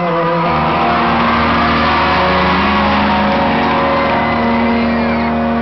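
A live rock band holds its final chord at the end of a song, with bass and guitar ringing out, under a crowd cheering and screaming.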